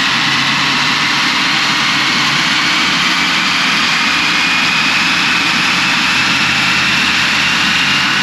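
A 2021 Audi Q3's 2.0-litre turbocharged four-cylinder driving its wheels on a chassis dyno: a loud, steady mix of engine and tyres on the rollers, with a faint whine that rises slowly in pitch.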